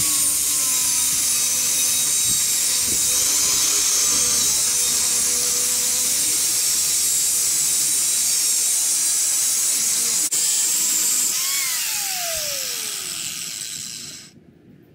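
Angle grinder with a cut-off wheel cutting through a steel coil spring, a steady high grinding for about eleven seconds. Then the grinder is let off and its whine falls away as the disc spins down.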